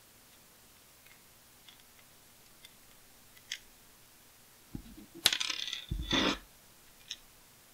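Small hard-plastic toy parts clicking and clattering as action-figure face masks are pushed sideways into a tight-fitting plastic backpack case: a few faint light clicks, then a burst of sharper clicks and rattling with a couple of dull bumps about five seconds in, and one more click near the end.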